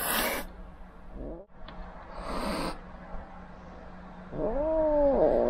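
A frightened stray kitten hissing defensively: a short hiss at the start and another about two seconds in. Near the end comes a drawn-out yowl that rises and then falls in pitch. These are the warning sounds of a wary, not yet tame kitten.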